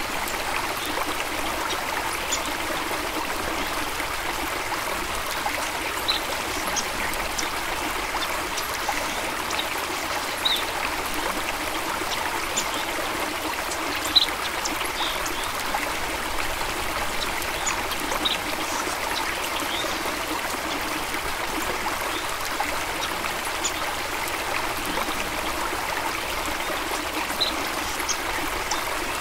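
Small stream flowing steadily over stones, a continuous rush with scattered little splashes and drips, one a bit louder about halfway through.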